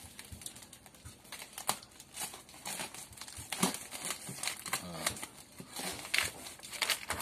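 Cardboard box being cut open: a knife slitting the packing tape while tape and paper crinkle and tear in irregular crackles and scrapes.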